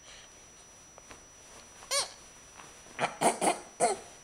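Baby vocalising: one short high squeal about two seconds in, then a quick run of four short, loud fussing cries near the end.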